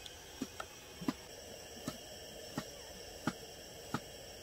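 Kitchen knife slicing a cucumber on a cutting board: light, irregular taps of the blade against the board, about one every half second to a second.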